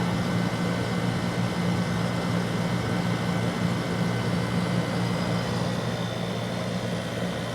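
1991 Friedrich Quietmaster 12,000 BTU window air conditioner running on low cool, blowing cold air. Its motors give a steady low hum under an even rush of fan air.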